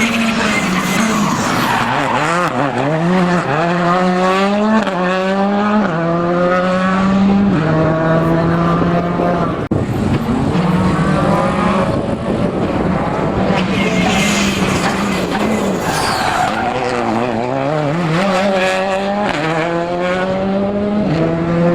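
Rally car engine revving hard through a stage, its pitch climbing and then dropping in steps as it changes gear, easing off and picking up again twice.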